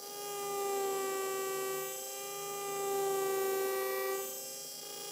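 Dental implant contra-angle handpiece on its surgical motor running at 1500 rpm, a steady whine as the twist drill cuts through the guide sleeve into a model jaw. Its loudness swells and dips a few times as the drill is worked.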